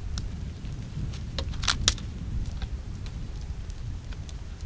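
Dry branches cracking and clattering as firewood is handled and broken at a small campfire: scattered sharp cracks, the two loudest close together about two seconds in, over a steady low rumble.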